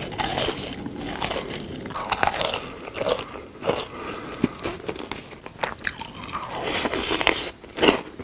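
Close-miked eating sounds: crunchy bites and chewing, an irregular run of sharp crunches and clicks.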